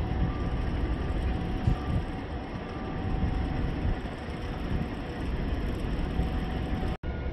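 Steady low rumble of distant heavy machinery across a limestone quarry, with faint thin tones above it. The sound drops out for an instant near the end.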